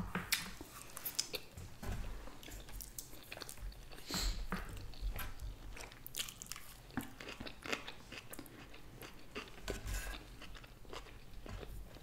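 People chewing nigiri sushi close to the microphone: a string of small, uneven mouth clicks and chewing noises at a low level.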